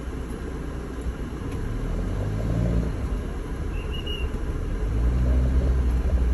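Motorhome engine and road rumble heard inside the cab while driving slowly in traffic; the engine note rises as it pulls forward about two seconds in and again near the end.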